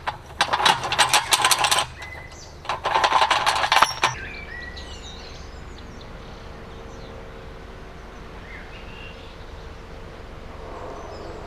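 Metal mooring chains rattling against steel Armco piling in two bursts of about a second and a half each, as they are pulled free to cast off. After that a steady low hum from the idling narrowboat engine.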